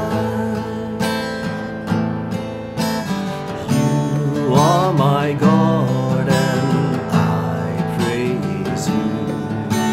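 Acoustic guitar strummed in a steady rhythm while a man sings a slow worship melody over it, drawing out long, bending notes about halfway through.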